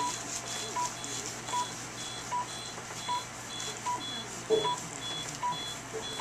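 SmartLipo Triplex laser console beeping steadily, a short beep about every 0.8 seconds, the tone a surgical laser gives while it is firing. A short knock about four and a half seconds in.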